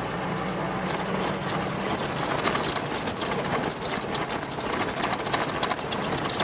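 Vehicle driving over a rough sandy desert track, heard from inside the cab: a steady engine hum, then, from about two seconds in, rapid rattling and knocking of the body and load over the bumps.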